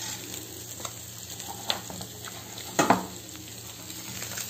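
Plastic spoon stirring fried spleen and pepper strips in a stainless steel pan, with a light sizzle as the heat is switched off. A few knocks of the spoon against the pan, the loudest a little under three seconds in.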